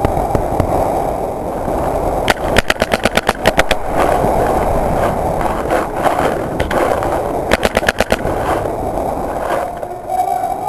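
Paintball markers firing in rapid strings of shots, about ten a second, two bursts in all, over a steady din.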